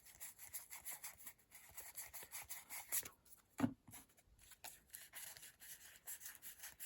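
Trading cards being counted through by hand: a quick run of soft card flicks and slides, with a light knock about three and a half seconds in.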